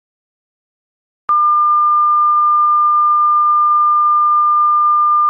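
A steady, high electronic tone held at one pitch, switching on suddenly about a second in.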